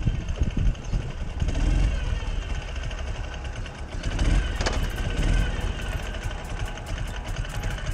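Ural sidecar motorcycle's 750 cc boxer twin running on the move, under a heavy low rumble of wind noise, with light clicking in the second half.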